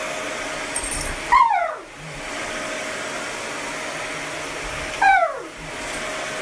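A dog gives two short whines that fall in pitch, about four seconds apart, over a steady whooshing noise like a hair dryer or fan.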